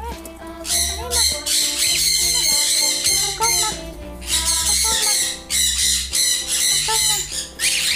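Cockatiels squawking in repeated harsh calls, over background music with held tones and a bass line.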